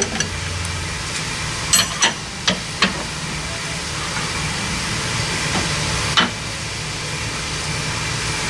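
A steady hiss with sharp clinks and knocks of hand tools on metal: four between about two and three seconds in, and one more around six seconds.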